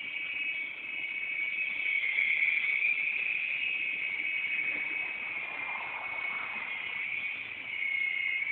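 A radio-controlled helicopter in flight: a steady high whine from its motor and rotors that wavers slightly in pitch and swells in loudness.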